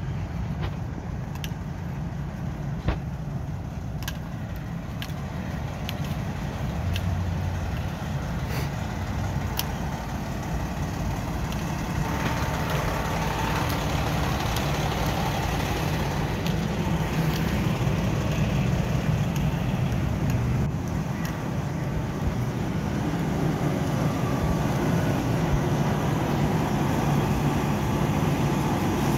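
Steady motor vehicle engine rumble that grows slowly louder, with a few sharp clicks in the first ten seconds.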